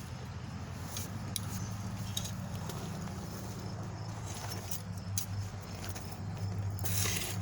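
Faint clicks and rustling of dry soil and potato plants being worked by hand, with a louder rustle near the end, over a steady low hum.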